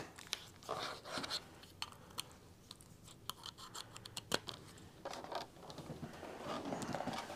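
Quiet handling noise of a USB cable and a plastic wall charger adapter on a tabletop: scattered small clicks and rubs as the cable is pushed into the adapter, with a sharper click a little over four seconds in and some rustling near the end.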